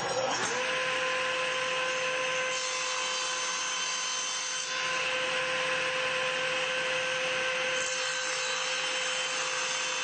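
Table saw switched on, its motor whine rising to a steady pitch within half a second and then running steadily. The sound changes between about two and a half and eight seconds in as a board held against the miter gauge is pushed through the blade for a miter cut.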